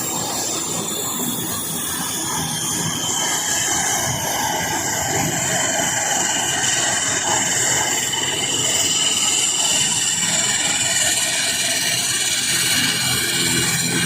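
Turboprop airliner engines running with a steady high whine over a broad rushing noise, growing a little louder toward the end.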